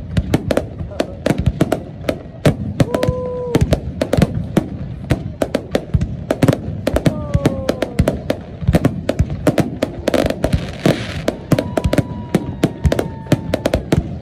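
Aerial fireworks shells bursting overhead in a dense barrage, several sharp bangs a second with no let-up. A few short held or slightly falling tones sound over the bangs.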